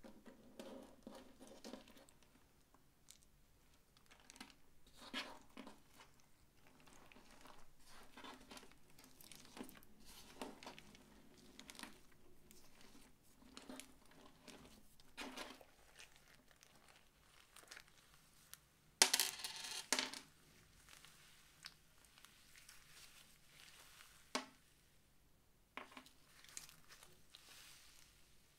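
Hands kneading and stretching glossy slime mixed with glitter, fake snow and small plastic buttons: irregular sticky squishes, pops and crackles, with one louder stretch of crackling a little past the middle.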